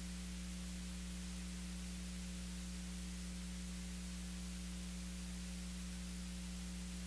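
Steady electrical mains hum with a constant hiss, a low buzz made of several fixed tones that do not change at all.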